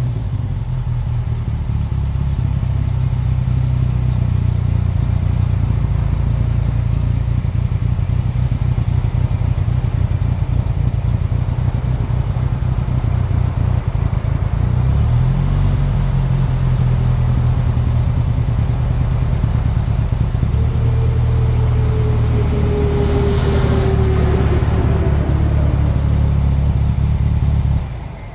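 1954 MG TF's four-cylinder engine running at a steady idle just after a cold start; the idle shifts slightly about halfway through, and the engine shuts off near the end.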